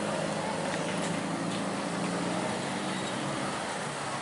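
Steady road traffic passing close by: car and motorcycle engines running with tyre noise on the road, an even low engine hum underneath.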